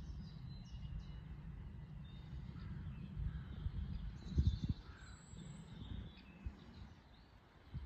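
Birds chirping and singing over a steady low rumble, with a few dull thumps about four and a half seconds in.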